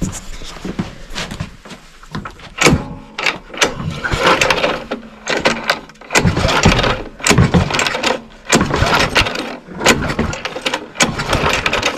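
Walk-behind lawnmower's recoil starter pulled several times in a row, the engine cranking over with each pull without catching, to check for spark with an inline ignition tester.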